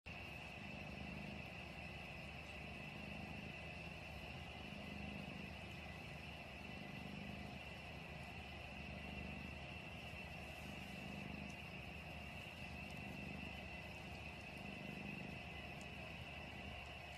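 Cat purring, swelling and fading with each breath about every one and a half to two seconds, over a steady faint high hum.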